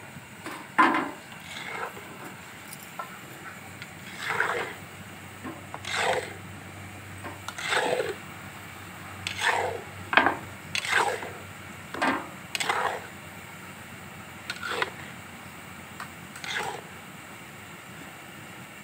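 Long-handled metal spatula scraping and stirring nimki in a large iron kadhai of hot oil: about a dozen uneven scraping strokes, each about half a second long, over a steady low hiss of frying oil. The strokes stop near the end.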